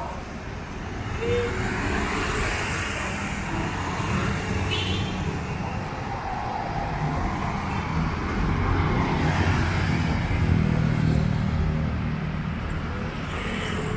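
City street traffic: vehicle engines running and cars passing, a steady rumble that swells louder about ten seconds in.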